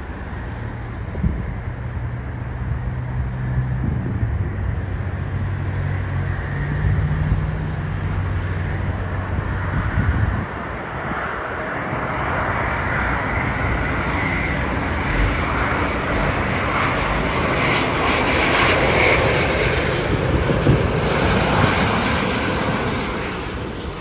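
Rolls-Royce Trent XWB turbofans of a Cathay Pacific Airbus A350-941 as the airliner passes, a broad jet roar that builds gradually, is loudest about three quarters of the way through, then eases off.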